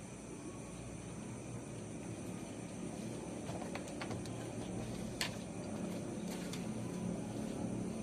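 Steady insect chorus, crickets or similar, over low outdoor background noise, with a few sharp clicks about halfway through.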